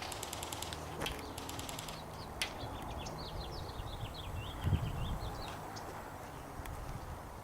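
A bird sings a quick run of short, falling chirping notes in the middle of the stretch, over a steady low hum. Two brief bursts of rapid high ticking come in the first two seconds, and a low thump follows just after the singing.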